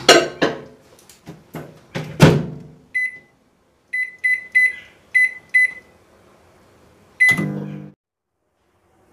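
Microwave oven being shut and started: two loud knocks as the bowl goes in and the door is closed, then seven short keypad beeps as it is set to high power for 5 minutes. After the last beep the oven starts with a low hum, which cuts off suddenly about a second later.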